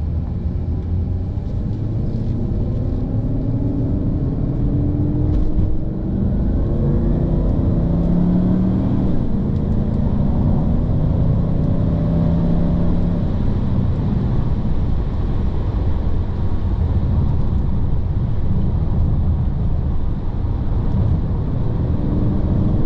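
Interior sound of a 2004 Bentley Arnage T's twin-turbo 6.75-litre V8 pulling the car along, its note rising in pitch under acceleration, dropping briefly about six seconds in, then climbing again and settling to a steady cruise. Tyre and road rumble runs underneath throughout.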